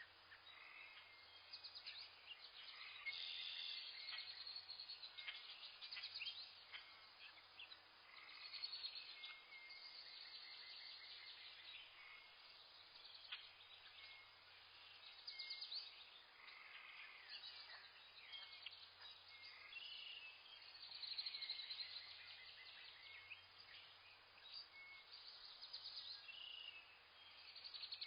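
A chorus of many small birds chirping and calling over one another in forest, faint, with short quick chirps coming continuously.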